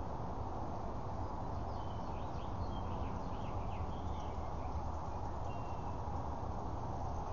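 Steady outdoor background noise, a low even rush. Over it, a few faint high bird chirps come in a cluster about two seconds in and once more later.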